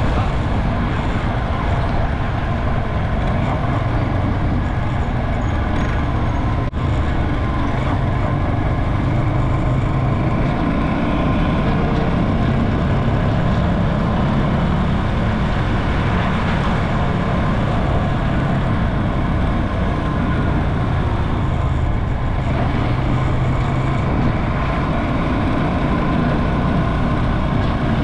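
Motorcycle engine running steadily while riding, mixed with wind and road noise. A very brief break in the sound comes about seven seconds in.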